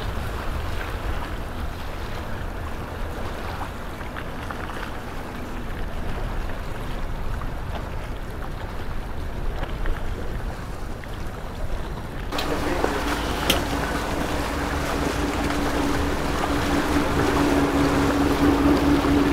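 Boat engine rumbling low on the water, with wind on the microphone. About two-thirds of the way through, the sound switches abruptly to a louder small speedboat running at a steady pitch, with water rushing along the hull.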